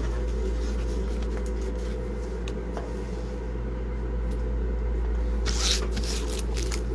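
Baseball trading cards being handled and flipped through, with faint light clicks and a brief louder rustle about five and a half seconds in, over a steady low hum.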